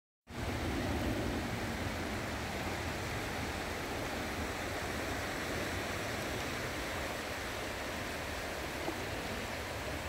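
Steady wash of small Baltic Sea waves over a shallow sandy shore, with a low rumble of wind on the microphone.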